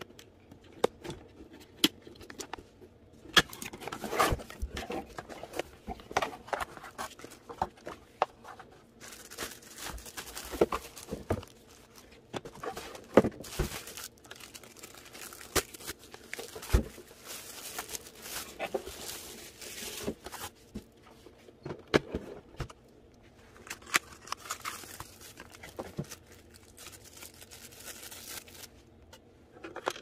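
Unboxing handling noise: plastic packaging crinkling and rustling, with scattered sharp clicks and knocks as the box and parts are handled.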